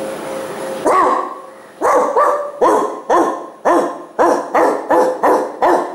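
A dog barking over and over, about two barks a second, starting about a second in after a steady hum.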